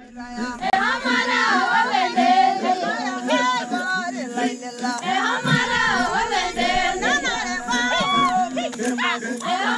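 A group of Maasai villagers singing together unaccompanied, many overlapping voices with a steady low held note underneath.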